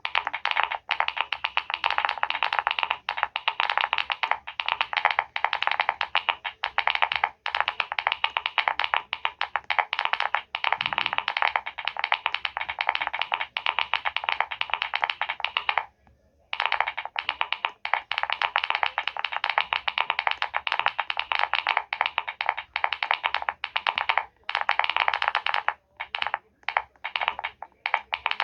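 Fast, continuous typing on a computer keyboard, a dense run of key clicks. It stops for about half a second around the middle, and near the end it breaks into short separate bursts of keystrokes.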